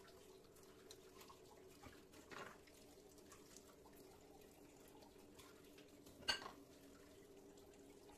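Ceramic cups being rinsed and handled at a sink, with faint running tap water: a soft knock about two seconds in and one sharp clink of a cup set down about six seconds in. A faint steady hum sits underneath.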